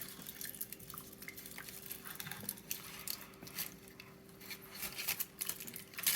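Hot milk poured slowly over a chocolate bomb in a mug, heard as faint scattered patters, ticks and light crackles over a thin steady hum.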